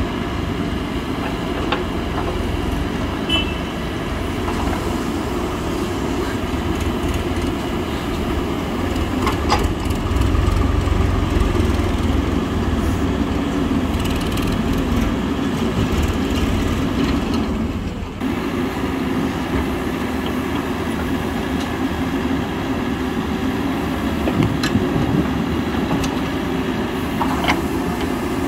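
Diesel engine of a Mahindra EarthMaster SX backhoe loader running steadily while its rear arm digs. The engine gets louder under load for a few seconds about a third of the way in, with a few light knocks from the bucket and arm.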